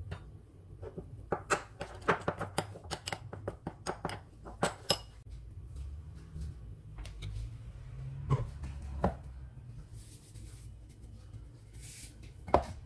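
Metal spoon clinking against a ceramic bowl while stirring a spice paste: a quick run of clinks for the first few seconds, then a few scattered clicks.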